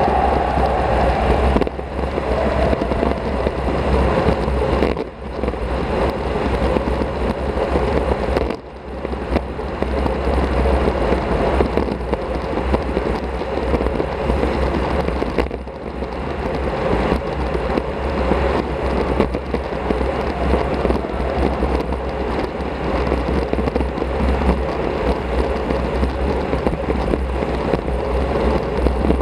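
Steady wind and road noise on an action camera's microphone while riding a road bike at speed. The level dips briefly a few times.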